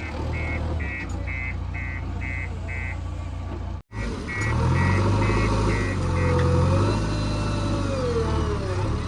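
Heavy diesel machinery running with a reversing alarm beeping about two to three times a second; the beeping stops a little past halfway, after which a whine rises and falls in pitch over the engine. The sound drops out for an instant about four seconds in.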